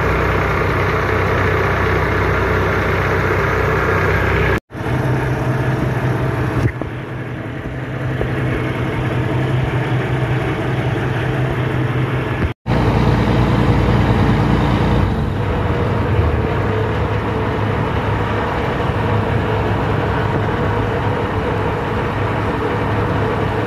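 A fishing boat's engine running steadily with a low, even hum. The sound drops out briefly twice.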